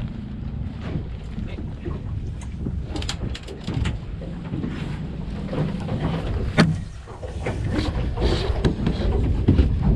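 Wind rumbling on the microphone at a pedal-boat pier, with scattered knocks and one sharp knock about six and a half seconds in.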